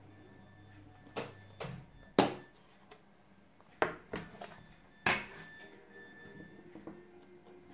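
Plastic fly box being handled and opened on a table: a series of sharp plastic clicks and knocks, the loudest about two seconds in and again about five seconds in.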